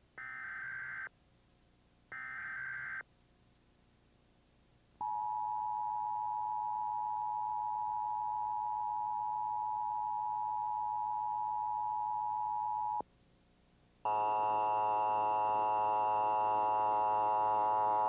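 Emergency Alert System test tones. First come two one-second bursts of the screechy SAME digital header data a second apart. Then the eight-second EAS attention signal: two steady tones at about 853 and 960 Hz sounding together, cut off sharply. After a second's gap, a buzzy tone with many overtones starts and runs on, slowly getting louder.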